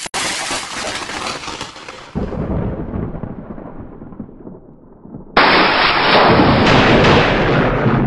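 Thunderstorm sound effect: a sudden crack of thunder that rolls away, a low rumble about two seconds in, then loud thunder with heavy rain from about five seconds in.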